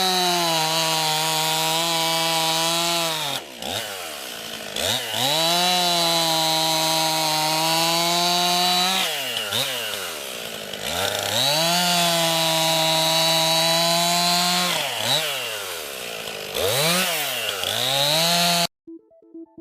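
Two-stroke 50 cc chainsaw, a new Stihl MS 261, running at full throttle in long steady stretches. Between them the engine revs drop sharply and climb back several times. The sound cuts off abruptly shortly before the end.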